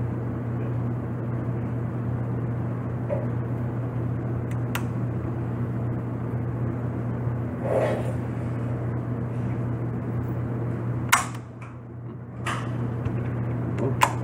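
Steady low hum, with a few sharp metallic clicks near the end as the Lee-Enfield No.4 Mk 2's bolt is worked to clear a failure to chamber; no shot is fired.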